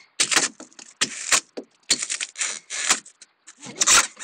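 Irregular bursts of scraping and crunching from work on a rotten boat stringer, as the soft, rotted wood and its fiberglass skin are broken into and torn out.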